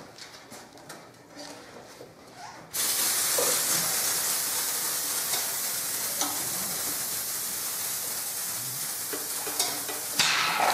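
Pump-saver protectant spraying out under pressure as a sudden steady hiss that starts about three seconds in and lasts about seven seconds, frothing into foam.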